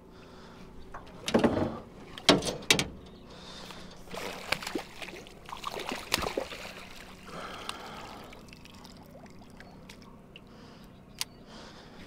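Water splashing in short bursts, two loud splashes in the first three seconds, then several weaker ones.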